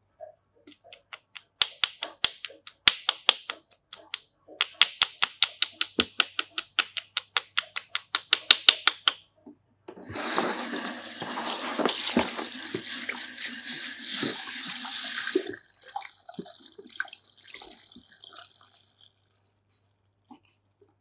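A quick run of sharp hand claps for several seconds: a barber's percussive massage with the palms pressed together. Then water runs steadily from the tap at the shampoo basin for about five seconds and stops, leaving a faint trickle.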